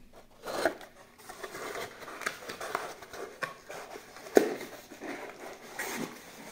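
Small cardboard product box being handled and opened: rustling and scraping of cardboard with scattered light taps, and a sharper knock a little over four seconds in.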